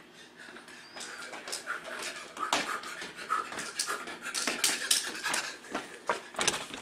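Rapid footfalls and sneaker squeaks on a tile floor from agility-ladder footwork, with loud panting breaths. The steps come thicker and louder after about two and a half seconds.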